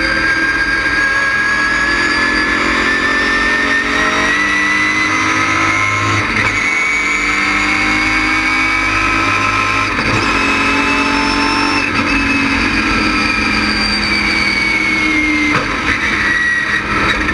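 Stock car's LS6 V8 engine running hard on a race track. The engine note climbs slowly for about twelve seconds, then falls away over the next few.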